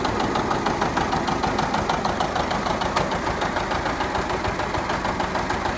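John Deere 730 Diesel tractor's two-cylinder diesel engine running with a steady, even pulsing beat as the tractor is driven across grass. A single sharp click about three seconds in.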